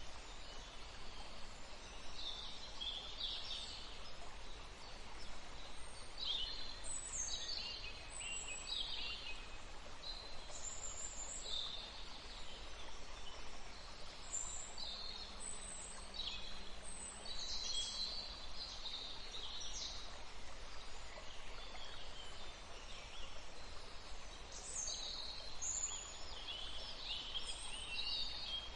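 Songbirds chirping and trilling on and off over a steady hiss of flowing water.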